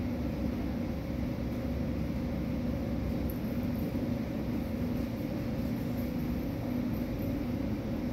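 Steady low hum over a constant rushing noise: the room drone of a large gym hall.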